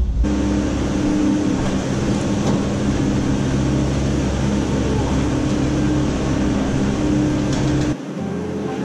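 Steady running noise of a vehicle: an even rushing hiss over a low, unchanging hum with several steady tones. It switches abruptly to a quieter, lower hum near the end.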